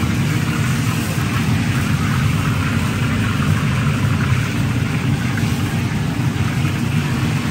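Commercial wok stove burner running at high flame, a steady low rushing noise with no break.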